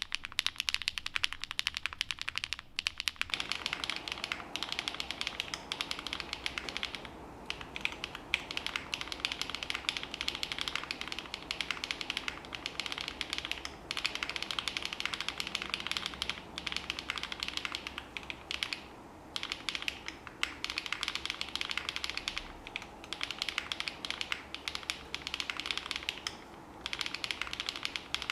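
Fast, continuous typing on a mechanical keyboard with HMX Sunset Gleam (Duck Duck) linear switches, a POM plate and GMK keycaps, the keys bottoming out in a dense stream with a few short pauses. About three seconds in the sound changes to a camera microphone's pickup, with more low room sound under the clicks.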